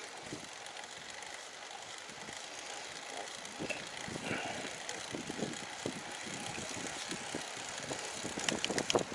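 Road bike being ridden: steady tyre and drivetrain noise with irregular knocks, and a cluster of sharp clicks near the end.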